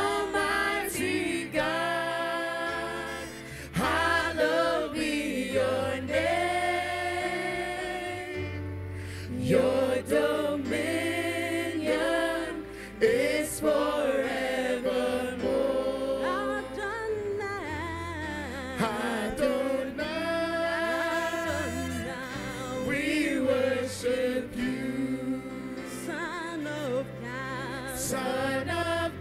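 Live gospel worship singing: two women and a man sing into microphones in long held, wavering notes, over low sustained accompaniment notes.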